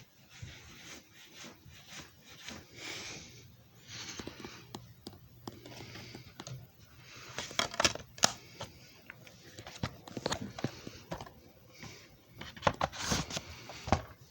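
Handling noises: irregular rubbing and scraping with sharp clicks and knocks, the loudest clicks about eight seconds in and near the end.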